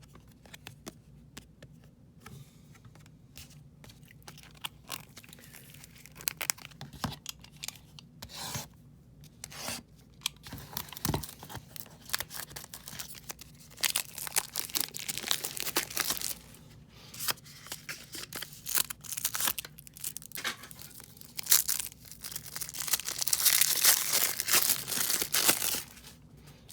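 Wrapper of a 1994 Flair baseball card pack being torn open and crinkled. It comes as a run of irregular crackles, densest and loudest near the end.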